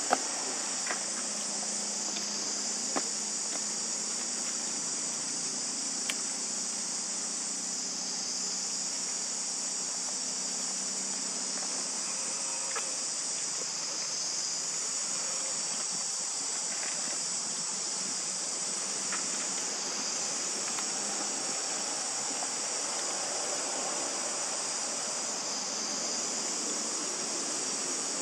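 Steady high-pitched insect chorus that slowly swells and fades every few seconds, with a few sharp clicks, the loudest at the very start.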